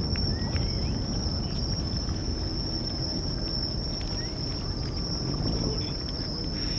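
Steady high-pitched chirring of night insects such as crickets, over a low rumbling background noise that slowly fades.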